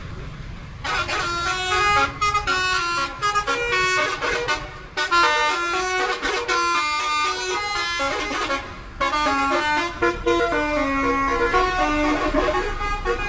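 Bus telolet horn, a set of air-horn trumpets, playing a quick tune of stepped notes. It starts about a second in and breaks off briefly twice, near the middle and again about two-thirds through.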